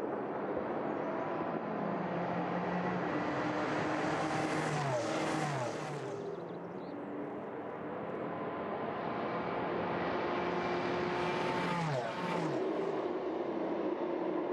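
Three Peugeot 908 V8 turbodiesel prototypes running close together, a steady engine drone. Twice, about five seconds in and again near twelve seconds, the three pass close by one after another, each with a quick falling pitch.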